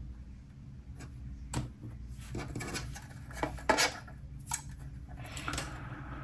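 Small irregular clicks and taps of plastic model-kit parts and hobby tools being handled and pressed together on a workbench, the sharpest tap a little before the middle, over a low steady hum.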